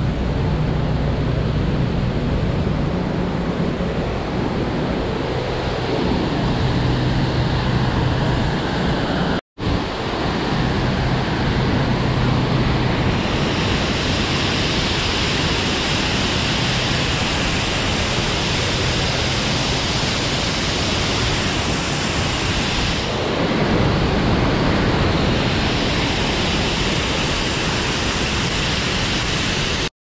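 Waterfall and creek water rushing as a steady, even noise, with a low hum underneath at first. The sound drops out for an instant about a third of the way in, then the rushing carries on, hissier.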